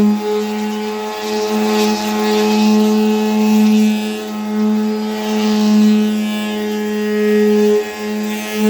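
Power sander running on the van's painted hood, a steady motor hum with a scratchy hiss that swells and eases about every two seconds as it works the surface, cutting back the cracked clear coat.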